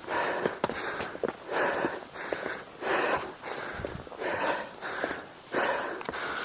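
Heavy, quick breathing of a hiker climbing a steep mountain trail, close to the microphone. Each breath comes about once or twice a second, with light footsteps on the trail between them.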